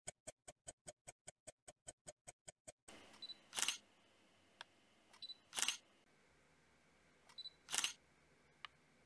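Rapid clock-like ticking, about five ticks a second, for the first three seconds. Then a camera's short focus beep followed by a shutter click, three times about two seconds apart.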